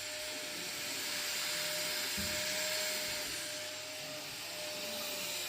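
Vacuum cleaner running steadily during sofa cleaning, a constant rushing noise with a steady whine.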